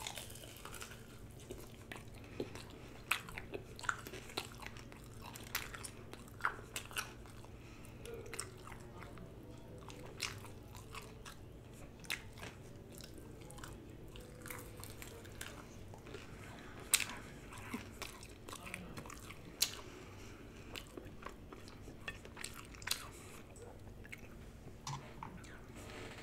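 A person biting and chewing chicken wings dipped in ranch, with many irregular sharp mouth clicks and crunches. A faint steady low hum runs underneath.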